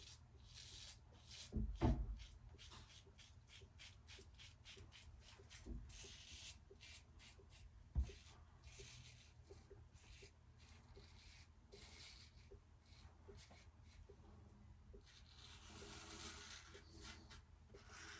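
Injector razor blade scraping through several days' stubble in many short, quick strokes. Two dull knocks stand out, one about two seconds in and one about eight seconds in.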